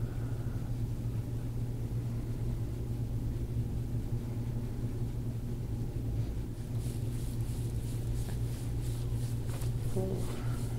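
A steady low hum throughout. From about six and a half seconds in, a rhythmic rubbing comes in, about three strokes a second: hands working deep-tissue massage over the thigh.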